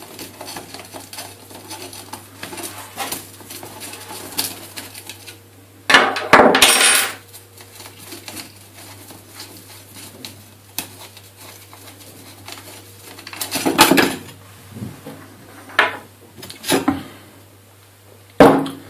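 Small metal clinks and clicks of a hex key and axle screws being handled as inline skate wheels are unscrewed and taken off, with louder clatters about six seconds in, around fourteen seconds and near the end.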